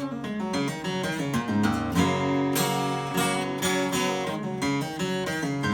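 A 1977 Martin D-35 acoustic guitar being played: strummed chords, with the notes shifting in a short run partway through. The guitar is freshly repaired and newly strung.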